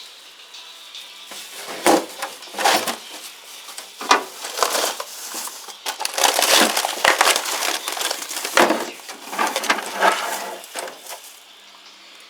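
Plastic bag rustling and crinkling in irregular bursts as food is packed into it for the freezer, busiest in the second half and easing off near the end.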